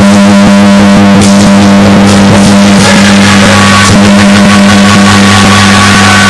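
Very loud procession troupe music: drum beats over steady held tones, with higher sustained notes joining about three seconds in.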